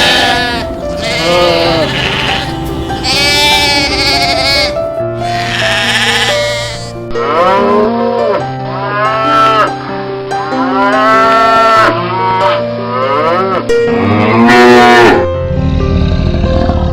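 Sheep bleating again and again, each call wavering, over background music with held notes.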